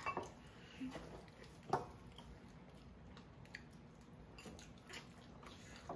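Faint eating sounds: soft chewing and mouth noises at a table, with a few scattered small clicks, the sharpest a little under two seconds in.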